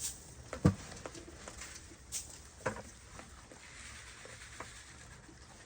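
A few scattered knocks and taps over faint rustling, the loudest about half a second in.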